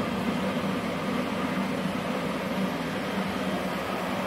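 Steady fan-like whir and hum from running TIG welding equipment, without the sound of an arc being struck.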